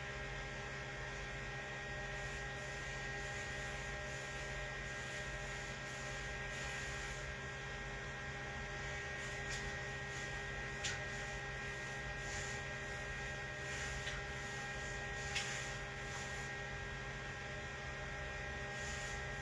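Steady electrical hum made of several constant tones, with a few faint soft ticks about halfway through.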